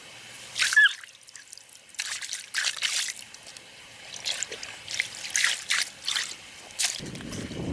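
Water splashing and dribbling in irregular short bursts, as if stirred or poured by hand, with a brief high chirp about a second in.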